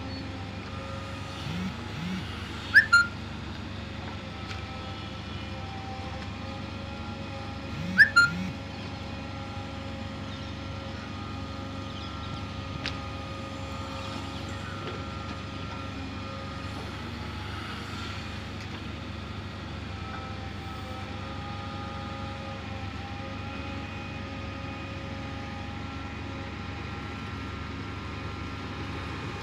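JCB 3DX backhoe loader's diesel engine running steadily as it works its backhoe arm loading soil into a tipper truck. Two short, loud rising squeals come about three seconds and eight seconds in.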